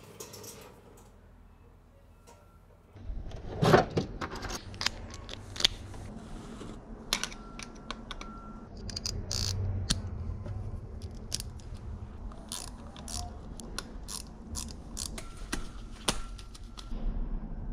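Metal tools and carburetor parts clicking, clinking and knocking as they are handled while working on a motorcycle's Mikuni carburetors, with rustling in between. The clicks start about three seconds in, and the loudest knock comes just after.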